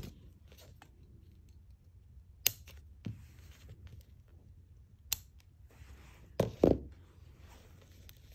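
Scissors snipping off loose thread ends at the wrapped neck of a silk fringe tassel: two sharp snips a few seconds apart, then a louder pair of knocks in quick succession, with faint handling rustle between.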